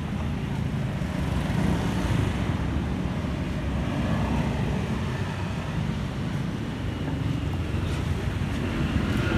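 Steady low street-traffic noise from passing motorbikes and cars, mixed with wind on the microphone.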